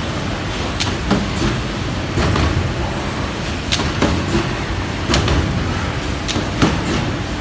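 Wetry M1050 CNC waste stripping machine running, with a steady rumble and irregular sharp clacks and knocks from its moving stripping head and sheet carriage.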